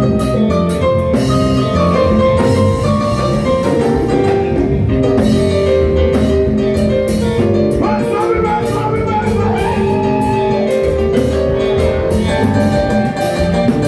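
Live konpa dance band playing: electric guitar, bass guitar, keyboard, congas and drum kit, with a steady beat throughout.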